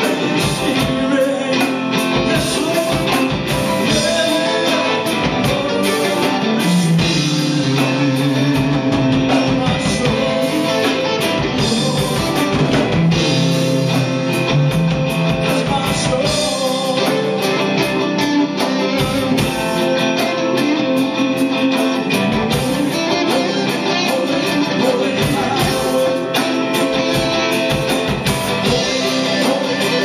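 A man singing into a microphone while playing a Stratocaster-style electric guitar, amplified, in a steady rock-style accompaniment.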